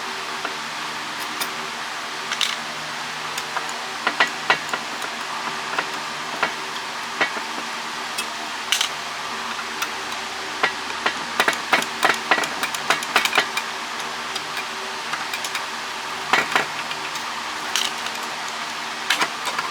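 Irregular clicks, taps and knocks of hand tools against the metal housing of a satellite LNBF as it is worked apart, over a steady background hum.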